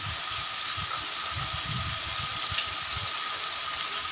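Steady sizzling hiss of chicken pieces frying in oil in an aluminium karahi over a gas flame, with a low uneven rumble underneath and a thin steady tone.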